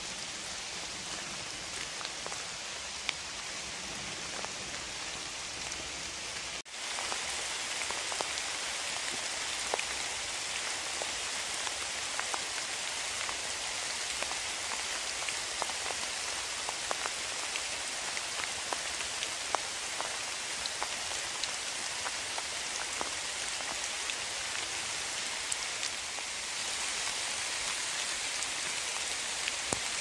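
Steady rain falling, a continuous hiss with many individual drops ticking sharply through it. The sound dips for an instant about seven seconds in and comes back a little louder.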